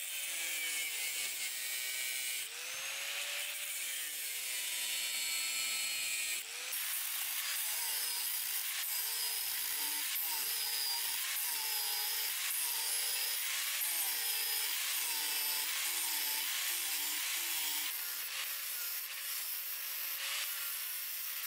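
Angle grinder with a thin cut-off disc cutting through a rusty steel saw blade: a steady, hissing metal grind over the motor's whine, which wavers in pitch as the disc is worked along the cut.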